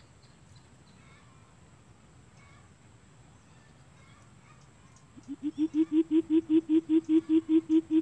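Greater coucal calling: a rapid series of deep hoots, about five a second, starting about five seconds in, swelling at first and then holding steady until it stops abruptly.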